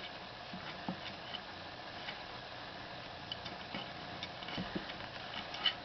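Kitten playing with a catnip toy: small, irregular soft taps and scuffles, a few a second, over a faint steady hiss.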